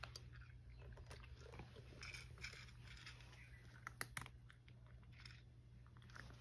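A cat crunching dry kibble: a run of faint, quick crunches, about two or three a second.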